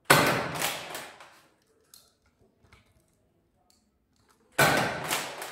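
Nerf blaster firing twice, about four and a half seconds apart. Each shot is a sudden loud mechanical clack with a short rattling tail.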